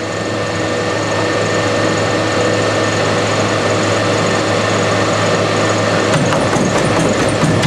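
High-speed treadmill belt and motor running steadily at 25 mph, a loud constant whir with a hum. About six seconds in, quick footstrikes slap the moving belt as the runner jumps on and sprints.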